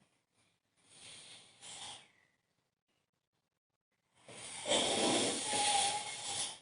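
A sleeping person snoring: a softer breath about a second in, then a loud snore from about four seconds in, still going at the end.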